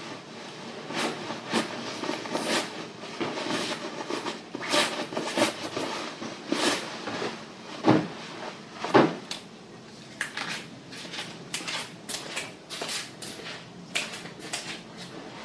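Household tidying: irregular knocks, clicks and clatter of things being handled and put away, like cupboard doors and drawers being opened and shut. Two louder thumps come about a second apart past the middle.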